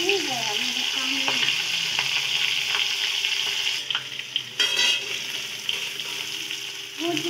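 Paneer and peas frying with a steady sizzle in an aluminium kadhai, a spatula stirring and scraping the pan, with a few short metal clinks.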